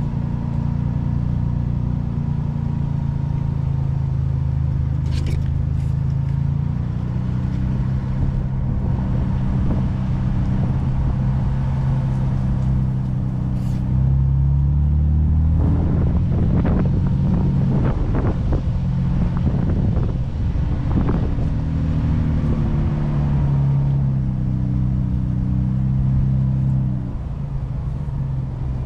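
Ford Bronco engine running at low trail speed, its pitch stepping up and down as the throttle changes. About halfway through, a run of knocks and rattles lasting several seconds, from the vehicle working over rough ground.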